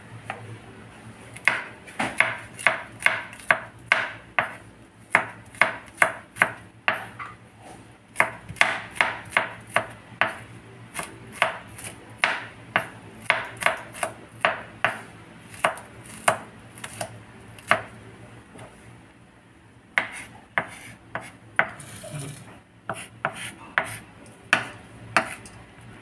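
Kitchen knife chopping garlic cloves on a bamboo cutting board: quick, even knocks about two to three a second, with a short pause about two-thirds of the way through before the chopping starts again.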